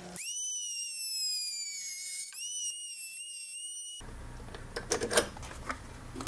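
Dremel rotary tool whining at a high pitch while grinding away plastic. Its pitch sags under the load, picks back up about two seconds in, then the whine stops abruptly about four seconds in. A few light clicks of parts being handled follow.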